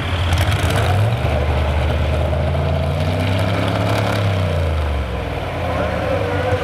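Modified 4x4 pulling truck's engine running after the pull, its pitch rising about a second in and wavering up and down near the middle.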